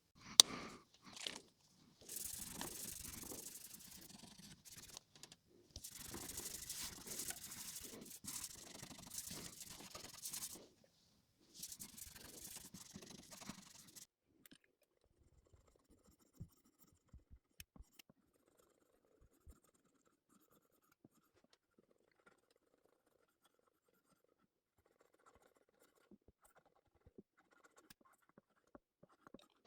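Cleaning cloth rubbing and scrubbing over a dirty guitar in three stretches of a few seconds each in the first half. The second half holds only faint scattered ticks of handling.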